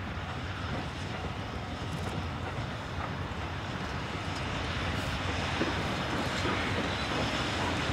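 Steam locomotive D51 200 working its train, a steady jet-like rushing roar of exhaust and running gear that grows louder toward the end.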